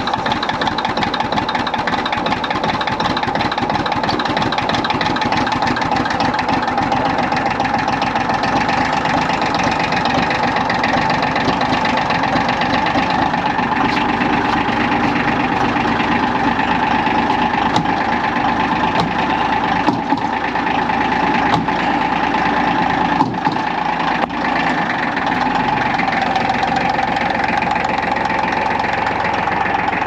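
Massey Ferguson compact loader tractor's engine idling steadily just after a cold start, left to warm up. A few brief clicks near two-thirds of the way through.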